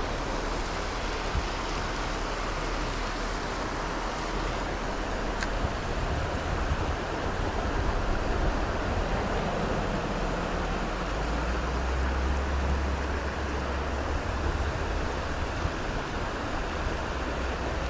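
Shallow creek water running steadily over rocks and a small riffle, with a low rumble underneath that grows louder about eleven seconds in.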